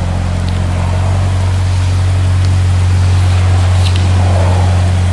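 A car engine idling steadily with a deep, even hum.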